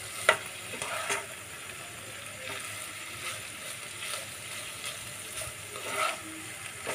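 Spiny gourd slices and grated coconut frying with a steady sizzle in a non-stick pan while a spatula stirs them, with a few short scrapes of the spatula against the pan.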